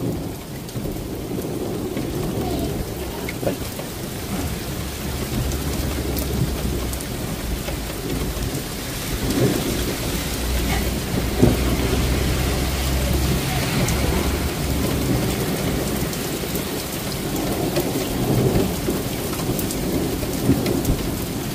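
Heavy rain falling steadily through continuous rolling thunder from a severe thunderstorm. The low rumble swells through the middle and eases toward the end.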